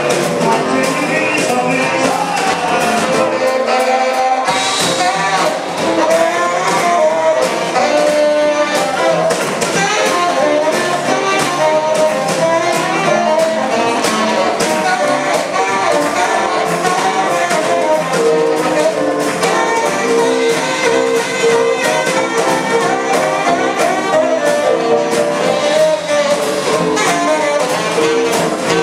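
Live rhythm and blues band playing, a saxophone solo over drums, guitar and bass with a steady beat.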